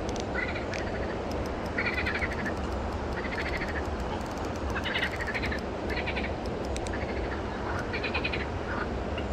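Frogs calling in short rattling trills, one roughly every second, over a steady low rushing background.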